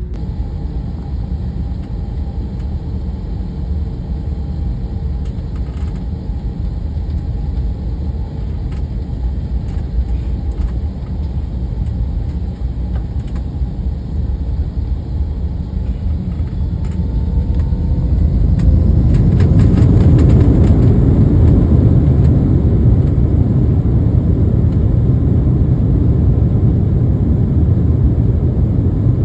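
Engine and cabin noise heard from inside an Airbus A321: a steady low rumble with faint tones sliding down in pitch, then, about 18 seconds in, the engines spool up and the rumble grows louder and fuller, with brief rattles, as for the start of a takeoff roll.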